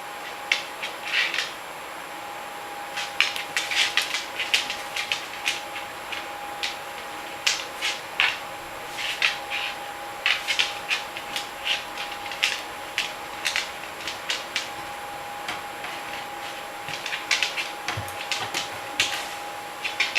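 A dog getting at cat food, with many irregular crisp clicks and crunches in clusters over a faint steady hum.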